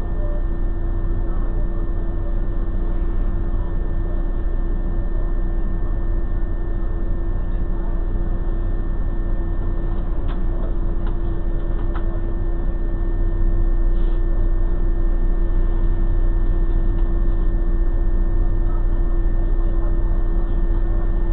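Steady drone of a car cabin heard through a dashcam microphone, with a low engine rumble and a constant hum tone, slightly louder about halfway through. A few faint clicks come around ten to twelve seconds in.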